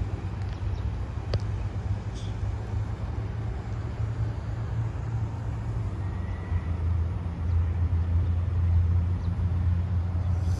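Steady low rumble of outdoor background noise, growing louder after about seven seconds, with one sharp click about a second and a half in.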